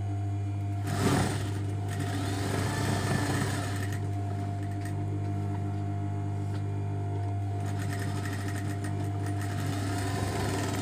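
Industrial lockstitch sewing machine stitching in short runs over the steady hum of its motor, with a louder burst about a second in.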